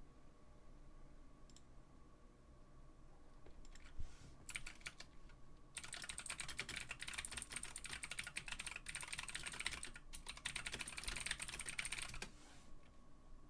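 Typing on a computer keyboard: a few scattered keystrokes, then a fast continuous run of typing for about six seconds that stops shortly before the end.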